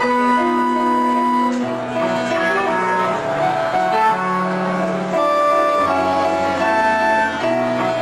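Live instrumental avant-rock music from a small ensemble of woodwind, keyboards and guitar: overlapping held notes that change every second or so over a shifting bass line.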